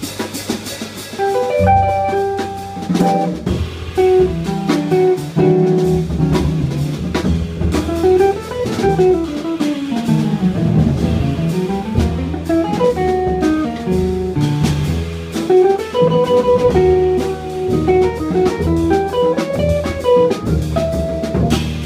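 Live jazz trio playing: an archtop electric guitar picks a winding melodic line over upright double bass and a drum kit with cymbal strokes. About halfway through, pitches slide down and back up before the melody resumes.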